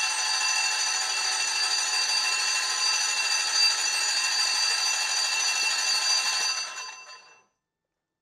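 Starter motor cranking a rebuilt Porsche 912 air-cooled flat-four with no piston rings fitted, so it spins freely without compression, to prime the oil system and build oil pressure: a steady high whine with several held tones, fading away about seven seconds in.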